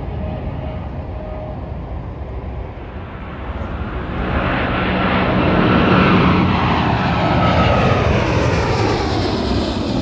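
Twin-engine jet airliner flying low overhead: its engine rumble swells about four seconds in and peaks midway, then a whine falls in pitch as it passes.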